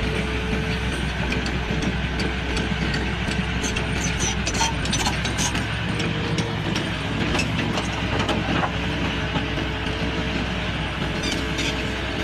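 A large excavator's diesel engine running steadily under a constant hum, with scattered metallic clicks and clanks throughout.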